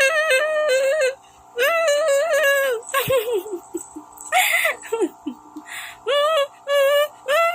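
High-pitched warbling calls made to tease the dogs, repeated in phrases about a second long with short gaps, the pitch wobbling quickly through each one. A few short falling whines come in the middle.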